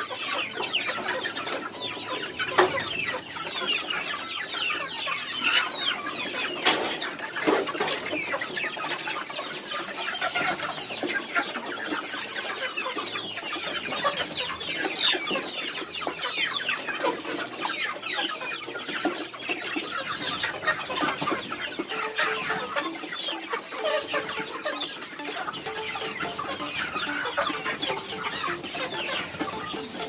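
A large flock of young chickens cheeping and clucking continuously, many short overlapping calls, with a few sharp knocks among them.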